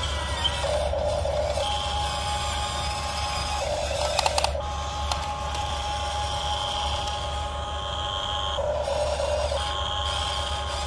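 Electric motors and gearboxes of a Huina RC excavator whining as it swings its house and moves its boom, with three noisier bursts about a second long and a short rattle of clicks near the middle.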